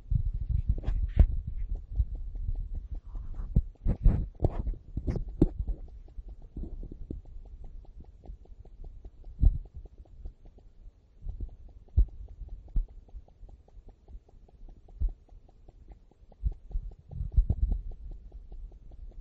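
Low hum with dull thumps and knocks: handling noise on a handheld recording device. The knocks come in a quick cluster over the first five seconds, then one every few seconds.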